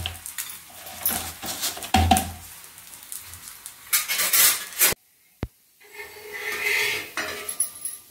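Metal kitchen utensils scraping and clattering against a non-stick tawa and steel dishes while a rice-flour roti cooks, with scraping strokes about every two seconds. The sound cuts out briefly about five seconds in.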